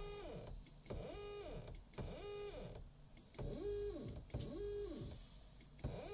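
Alfawise C30 laser engraver's stepper motors jogging the laser head in 5 mm test steps along the Y and X axes. Six short whines, each rising in pitch, holding, then falling away, about one a second.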